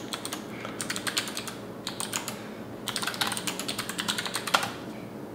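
Typing on a computer keyboard: quick runs of key clicks in bursts, with a short pause about two and a half seconds in and one harder keystroke near the end.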